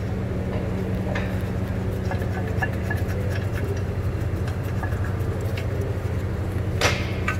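Light metallic clicks and taps of a brake caliper and its mounting bolts being handled and fitted against the steering knuckle, the sharpest click about seven seconds in, over a steady low hum.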